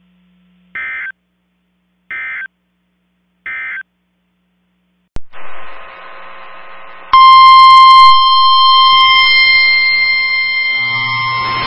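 Emergency Alert System end-of-message code sent as three short warbling data bursts about a second and a half apart, marking the end of the previous warning. After a click and about two seconds of radio static, a loud steady single-pitch alert tone begins about seven seconds in, as the next warning starts.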